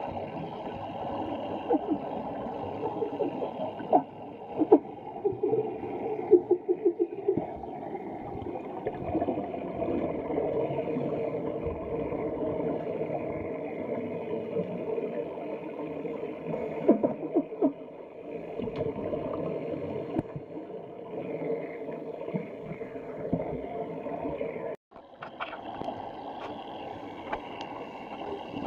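Scuba divers' regulator exhalations and rising air bubbles, recorded underwater: a steady bubbling rush with sharp clicks and pops, clustered about 4 to 7 seconds in and again around 17 seconds.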